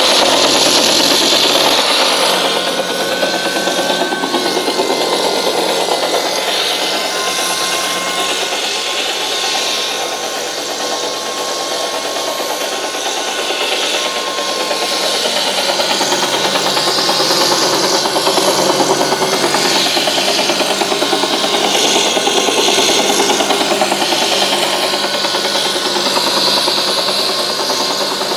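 UH-1H Huey helicopter sound effect from a model's sound card, played through a small speaker in an enclosure: steady turbine and rotor noise with a fast, even chop. A thin whine sits above it through the first half.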